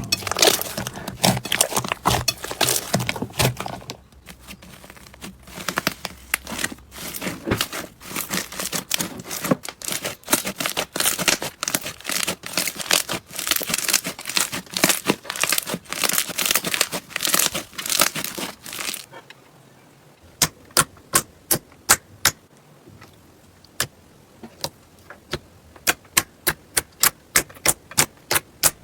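Slime being worked by hand, giving dense crackling and popping. About two-thirds of the way through it changes to a run of separate sharp pops, a few each second.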